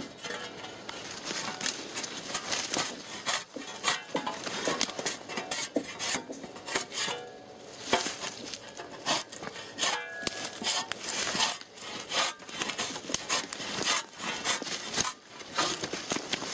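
A cut-down steel shovel blade scraping bark off a felled log in repeated, irregular strokes, peeling it in strips.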